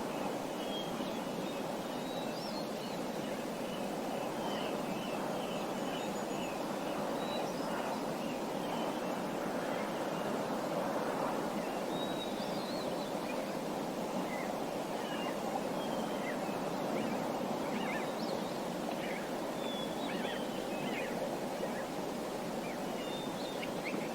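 Small birds chirping, many short scattered calls and brief trilled notes over a steady rushing background noise, as in a nature ambience recording.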